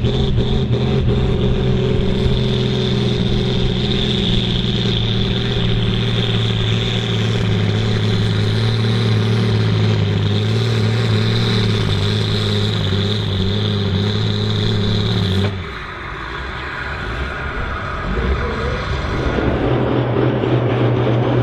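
Ford TW-25 pulling tractor's diesel engine running flat out under load during a pull: a steady deep drone with a steady high whine on top. About 15 seconds in the sound cuts off abruptly to a quieter stretch, then another pulling tractor's engine builds up again near the end.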